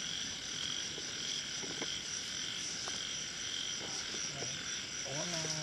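Night chorus of frogs and insects: a steady high trill with a pulsing call that repeats evenly.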